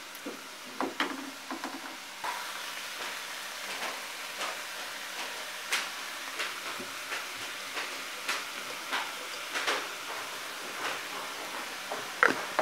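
Chopped chicken and vegetables sizzling in a frying pan over a gas flame, with a steady hiss, while a metal spoon stirs them, clicking and scraping against the pan about once a second. The loudest clicks come near the end.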